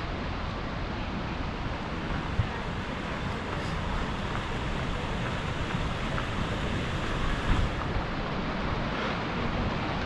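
Steady rush of a large waterfall, with wind buffeting the microphone.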